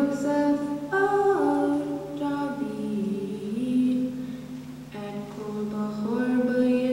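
A girl's solo voice chanting the Haftarah in Hebrew to traditional cantillation, unaccompanied. She sings long held notes that step between a few pitches, with a short break about five seconds in.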